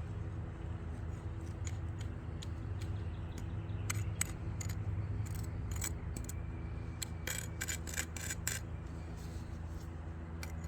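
Light clicks, taps and scrapes of hand tools working wet concrete into old brickwork, with a quick run of clicks about seven to eight and a half seconds in, over a steady low machine hum.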